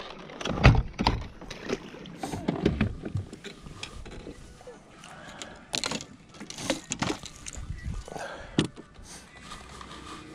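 Irregular knocks, thumps and rattles of gear and movement in a small fishing boat, with the loudest thump under a second in and another sharp knock near the end.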